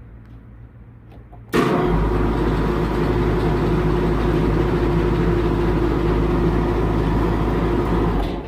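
Condenser fan motor switched on by a hand-pressed contactor, starting abruptly about a second and a half in, then running loud and steady with a low hum and a steady whining tone before cutting off near the end. The motor is failing: it is noisy and draws more current than its rated full-load amps.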